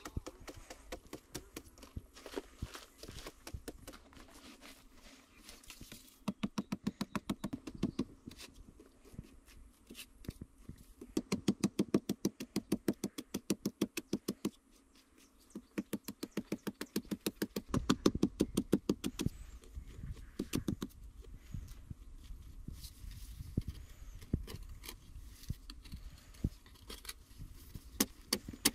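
Machete blade chopping and scraping hard-packed clay earth in quick runs of light strokes, about five a second, with short pauses between runs.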